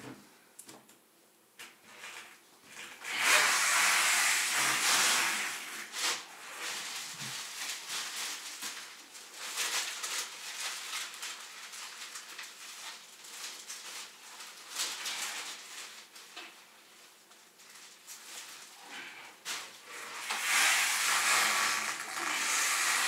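Plastic shopping bags and food packaging rustling and crinkling as groceries are taken out and handled. The rustling comes in spells of a few seconds, with quieter handling noises between.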